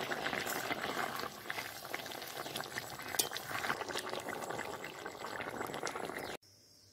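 Shrimp and pumpkin curry boiling hard in a metal wok, bubbling and crackling with many small pops, while a metal spatula stirs through it. The sound cuts off suddenly near the end.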